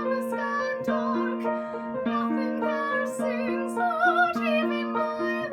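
A woman singing sustained notes with vibrato over an instrumental accompaniment that keeps repeating a steady low note under changing higher notes.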